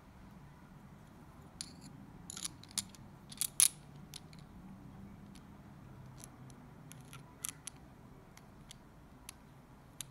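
Small sharp metal clicks and scrapes as the blade section of a Soviet 'barrel' multi-tool knife is fitted into the handle's metal ferrule and turned to screw it in. The loudest clicks come in a cluster about two to four seconds in, with lighter single ticks later on.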